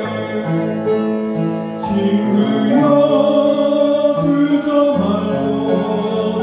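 Upright piano playing a hymn, its chords changing every second or two, with a man's singing voice.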